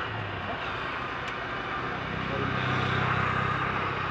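A running engine's steady low drone, swelling louder for a second or so past the middle.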